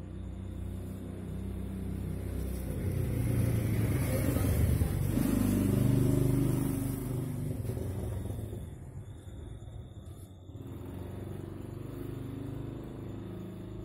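A motor vehicle engine passing by, growing louder to a peak about five or six seconds in and then fading away.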